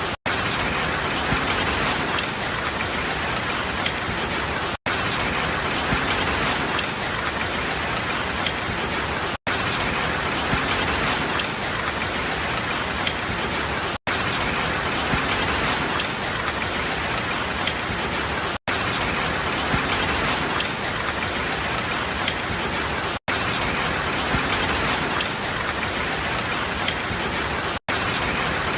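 Steady rain falling on a surface, with faint individual drops ticking through it. The sound cuts out for an instant at even spacing, about every four and a half seconds.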